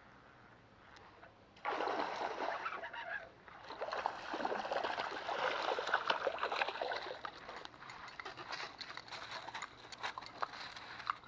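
Water splashing: a hooked bass thrashing at the pond surface as it is reeled in. It breaks out suddenly almost two seconds in, stays busy for several seconds and then dies down to lighter splashes.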